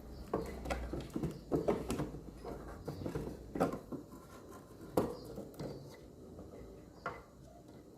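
Irregular clicks, taps and knocks as a loose loudspeaker is handled and pressed back into its mount in a homemade wooden speaker box. The sharpest knocks come about three and a half and five seconds in.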